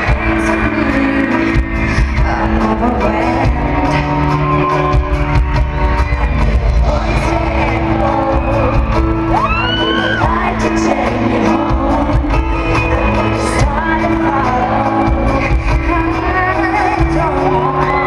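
Live arena performance of a slow ballad: a woman sings lead over sustained keyboard chords and a heavy, boomy low end from the PA. A few shrill whoops from the crowd rise above the music around the middle and near the end.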